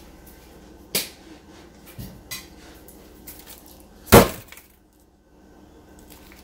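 A few knocks and one loud bang about four seconds in, from working at a refrigerated biscuit can that won't pop open.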